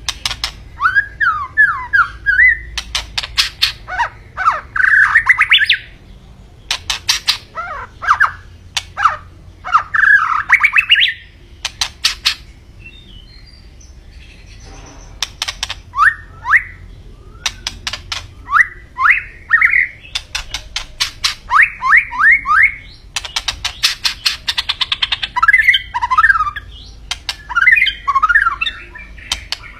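White-rumped shama (murai batu) singing energetically, typical of a bird in full song. It delivers bursts of rapid, sharp clicking notes mixed with quick down-slurred whistles, with a short lull around the middle.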